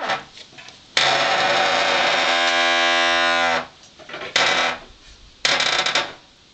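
Heavy sandstone door grinding out a loud, pitched groan as it swings, stone rubbing on stone. It sounds in stretches as the door is pushed: a long groan of about two and a half seconds, then two short ones.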